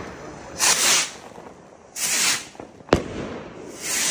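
Fireworks rockets with silver-tail lift: three short hissing whooshes as they go up, and one sharp bang of a burst about three seconds in.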